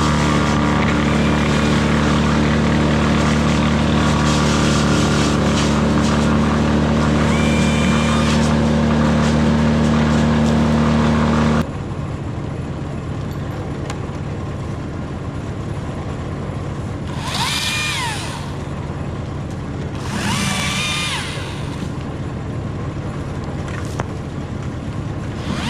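A steady engine hum that cuts off suddenly about eleven seconds in, leaving a quieter background with three short rising-and-falling calls near the end.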